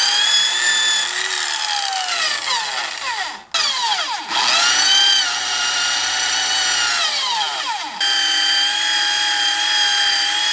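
Corded electric drill spinning a rubber decal eraser wheel against a truck door to rub off sun-baked vinyl decals. The motor whine spins up and sags as the wheel is pressed in, cuts out briefly about three and a half seconds in, then runs steadier near the end.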